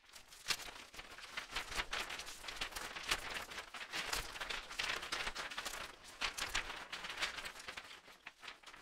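Intro sound effects under an animated logo: a dense, irregular crackle of clicks and hits, fading out near the end.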